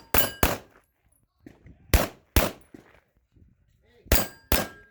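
Pistol shots fired in pairs, three quick pairs about two seconds apart, each shot followed by a short metallic ring from steel targets being hit.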